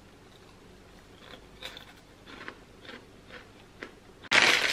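Puffed rice cake (Snack a Jacks caramel) being chewed: a few faint, irregular crunches. A sudden loud rush of noise comes near the end.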